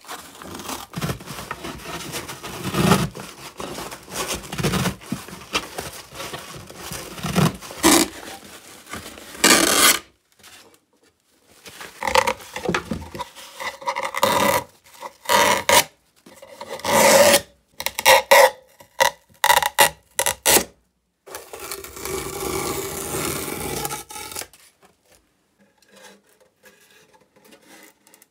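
Old cloth covering being peeled and torn off a wooden suitcase shell, the fabric rubbing and scraping against the wood in irregular bursts.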